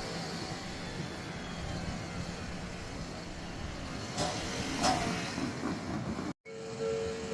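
An Odakyu electric train passing over a level crossing: a steady rumble of wheels on rail, with two sharp clacks about four and five seconds in. After a brief dropout near the end, the crossing's warning signal starts ringing in a steady pulsing tone.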